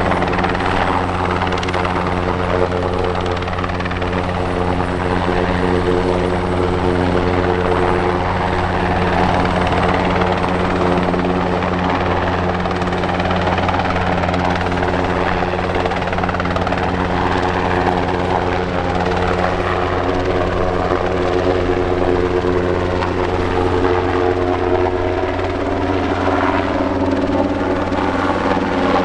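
Military transport helicopter running steadily nearby, its rotors and turbine engines making a continuous drone with a low, even hum; some of the higher tones dip slightly in pitch near the end.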